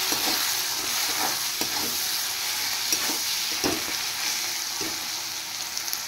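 Onion-and-tomato masala frying in oil in a metal kadai, sizzling steadily as a metal spatula stirs and scrapes through it, with a few light scrapes against the pan. The powdered spices have just gone into the oil.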